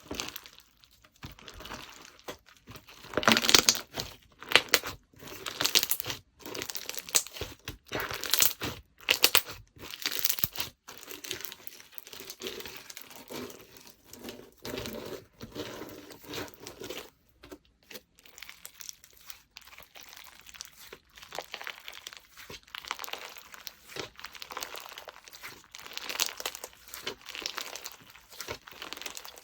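Slime being squished, pressed and stretched by hand: irregular bursts of sharp pops and clicks with short pauses between, busiest about three to four seconds in, around eight to ten seconds in, and again near the end.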